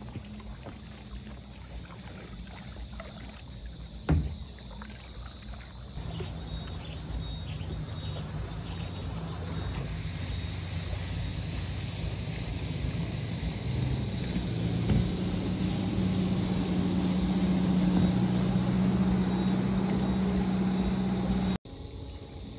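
A motor running steadily with a low hum that grows louder over several seconds, then cuts off suddenly; a single sharp knock sounds a few seconds before it starts.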